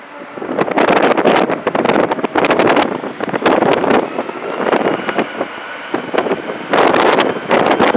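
Gusty wind buffeting the microphone in loud bursts. Under it, from about halfway through, the faint whine of a Boeing 767-300's jet engines as it taxis onto the runway.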